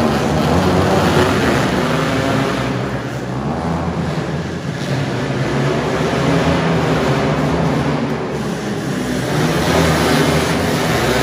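A pack of racing three-wheelers' two-stroke engines, the uploader's Honda ATC250R among them, revving hard together off the start line and into the first turn, the overlapping engine notes rising and falling in pitch.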